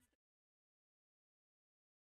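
Silence: the sound track is muted, with no sound at all.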